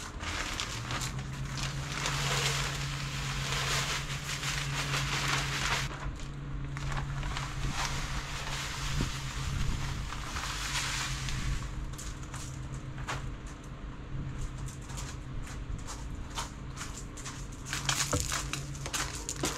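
Potting soil pouring from a bag into a large lightweight pot, heard as a rushing, crackly hiss in three pours: a long one from about a second in, a shorter one around ten seconds, and a brief one near the end. A steady low hum runs underneath.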